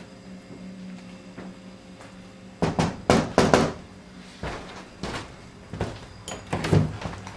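Loud knocking on a wooden door, a quick run of knocks about two and a half seconds in, followed by scattered thumps as the door is handled and opened.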